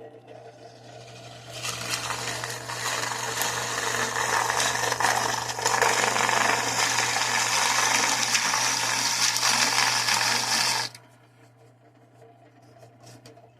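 Bauer benchtop drill press running with a steady motor hum while its step drill bit cuts a hole through a dried bottle gourd shell. The grinding of the cut comes in about a second and a half in, goes on for about nine seconds and stops suddenly, leaving the motor humming.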